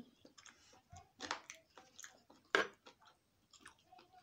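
Close-up eating sounds of a person chewing a mouthful of breakfast food, irregular chewing strokes with the loudest one about two and a half seconds in.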